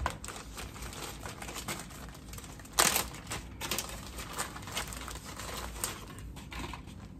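Packaging rustling and crinkling, with scattered light clicks and one louder rustle about three seconds in.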